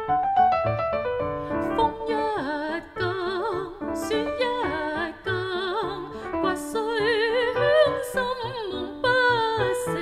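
A mezzo-soprano sings a Cantonese art song in classical style, with a wide vibrato, over piano accompaniment. The piano plays alone for about the first two seconds before the voice comes in.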